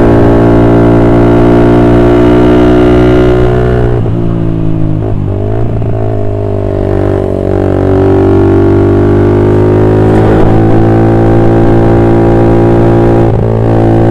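Motorcycle engine with an aftermarket BPro Racing racing silencer, heard while riding: a steady exhaust note that eases off about four seconds in, wavers and drops in pitch, then pulls steadily again, with a short lift of the throttle near the end.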